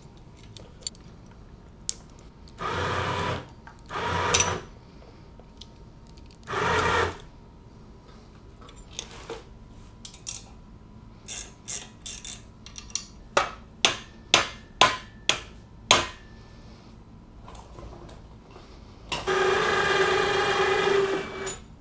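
Cordless power tool run in three short bursts, then a string of sharp metal clanks and taps on the engine, and near the end a longer steady run of the tool's motor with a whine.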